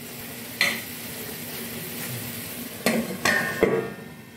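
Cauliflower curry simmering and sizzling in an aluminium kadhai, with a few sharp clinks of metal against the pan. Near the end a steel plate is set on as a lid, clanking and ringing briefly.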